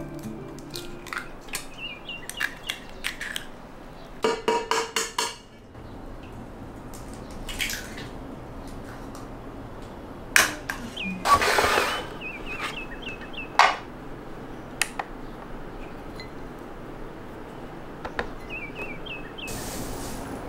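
Eggs being cracked on the rim of a stainless steel bowl: scattered sharp taps and shell cracks, with a quick run of taps about four seconds in and a louder crackle of shell near the middle.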